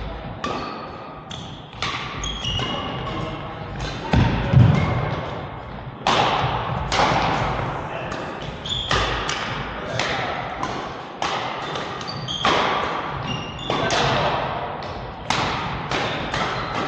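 A badminton doubles rally: sharp racket strikes on the shuttlecock every second or so, mixed with short high shoe squeaks and footfalls on the court.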